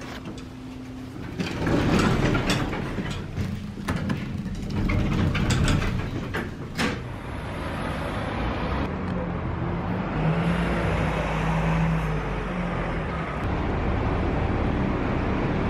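City street traffic, with a bus engine running close by. A run of sharp clicks and knocks comes in the first half; a steadier traffic noise follows, with an engine tone standing out about ten seconds in.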